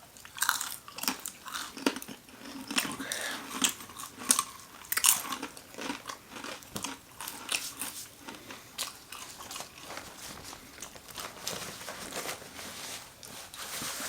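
Irregular crisp crunches of biting into and chewing crunchy food, repeated throughout.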